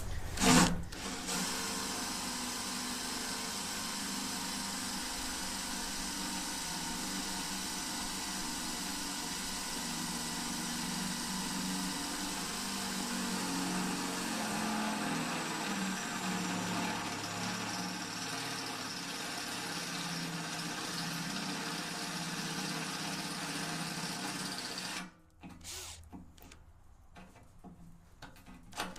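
Power drill boring a bolt hole through the steel of a tractor loader bucket, running steadily under load for about 24 seconds, then stopping suddenly as the bit breaks through.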